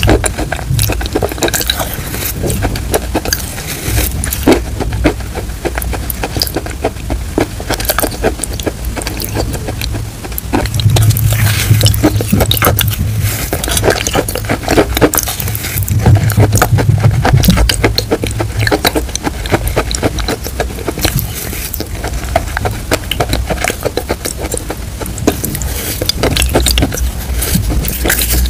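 Close-miked wet mouth sounds of eating chalk paste off a spoon: dense sticky clicks and smacks of chewing, with two louder stretches in the middle.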